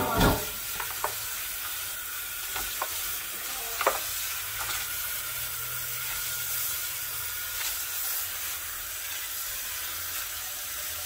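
Kitchen faucet running in a steady stream into a plastic basin of rice noodles as hands rinse and swish them, with a few light knocks in the first four seconds.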